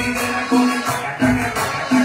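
Latin dance music played loud over a sonidero sound system: a low bass note pulses about every 0.7 seconds under a steady rattling shaker.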